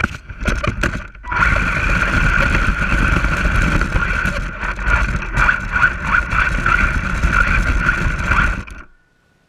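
Radio-controlled toy truck driving, its electric motor and gears giving a steady high whine over the rumble of its wheels on the ground. A few short throttle bursts come first, then a run of about seven seconds that cuts off near the end.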